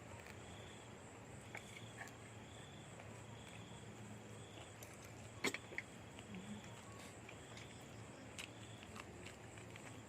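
Quiet outdoor background with a faint steady low hum, a soft high chirp repeating about once a second, and a few sharp clicks, the loudest about five and a half seconds in.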